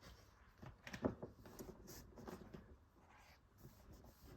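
Cardboard box lid being pushed and fiddled with, giving faint scrapes and small clicks, with the sharpest knock about a second in; the lid half closes but won't shut.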